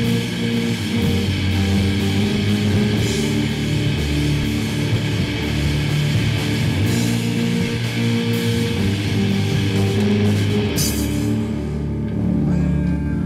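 Loud heavy rock music with guitar and drums. A little before the end the drums drop out and low held guitar and bass notes carry on.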